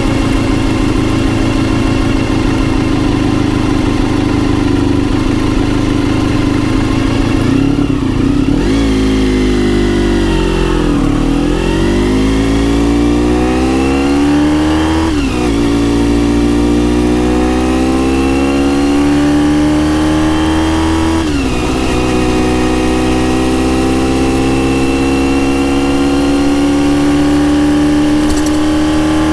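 Honda RVF400 NC35's V4 engine with gear-driven cams, through a TSR slip-on silencer, running steadily, then dropping in revs as the bike slows. It then pulls away again, revs climbing with two upshifts a few seconds apart, and rises slowly near the end.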